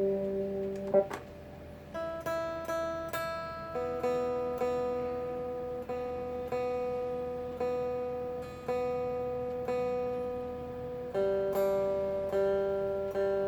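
Guitar played through a Zoom G1X multi-effects pedal in a clean, ringing tone. Notes and chords are picked about once a second and left to sustain and fade, with a short break about a second in.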